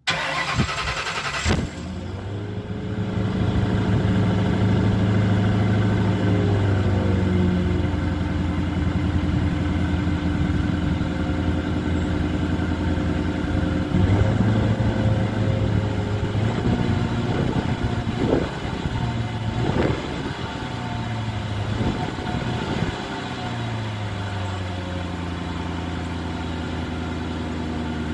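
A 1998 Mercury Grand Marquis's V8 exhaust at the tailpipe: the engine starts, then runs at a fast idle. About two-thirds of the way in it is revved briefly a few times, then the idle drops to a lower, steady speed.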